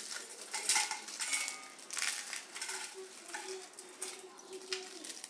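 Dry, crisped chapatis being crumbled by hand into a stainless steel bowl: irregular crackling and crunching, with the broken pieces rattling against the steel. The crackles are densest in the first couple of seconds and thin out after.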